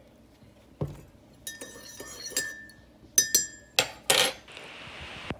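Metal spoon stirring coffee in a ceramic mug, clinking against the sides several times with a ringing tone. A louder, noisier clatter and a brief hiss follow about four seconds in.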